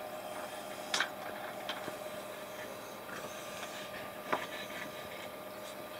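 A few short clicks of rough agate and thunderegg pieces being handled and knocked against each other on a wooden board: one about a second in and another past four seconds. A faint steady hum runs under them.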